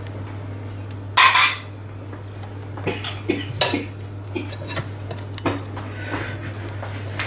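Metal utensils clinking and scraping against a glass mixing bowl: one loud scrape about a second in, then a run of light knocks and clinks. A steady low hum sits underneath.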